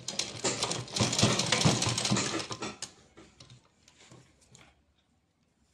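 Sewing machine stitching piping along a blouse neckline: a fast run of needle strokes for about three seconds, then a few slower, fainter stitches before it stops near the end.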